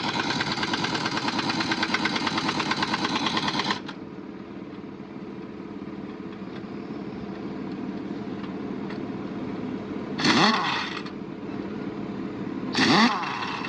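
An engine idles steadily. For about the first four seconds a loud, rapidly pulsing machine rattle runs over it and then cuts off. Near the end come two short bursts with a sliding pitch.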